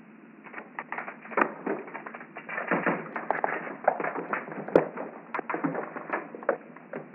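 Creeping woodsorrel (Oxalis corniculata) seed pod bursting when squeezed, flinging its seeds out: a dense run of small crackles and ticks, with a few sharper clicks standing out.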